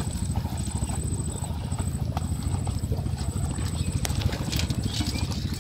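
Small shrimp and fish being shaken and picked out of a bamboo cage trap into an aluminium pot: a rapid low pattering and rattling, with one sharp click about four seconds in.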